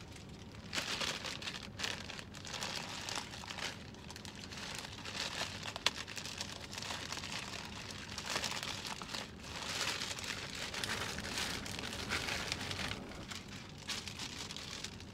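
Plastic bag crinkling and rustling in uneven bursts as it is handled and pulled open, with one sharp snap about halfway through.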